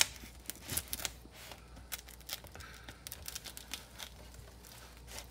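Packing tape and plastic wrap on a parcel crinkling and tearing as a knife blade is worked under the tape: a run of small scratchy clicks, with a sharp click right at the start.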